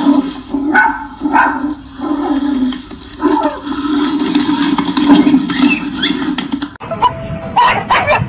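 Small dog barking and whimpering over a steady low drone. About seven seconds in the sound cuts abruptly to short, separate yelps.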